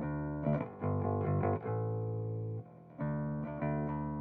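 Music: the instrumental opening of a song, guitar chords held over a bass line, with a brief drop in level about two and a half seconds in.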